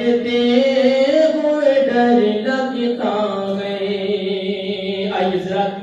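A solo male voice singing a naat (Urdu devotional poem in praise of the Prophet) into a microphone, unaccompanied, in long held notes that rise, glide and step in pitch. The last note is held for a couple of seconds and breaks off near the end.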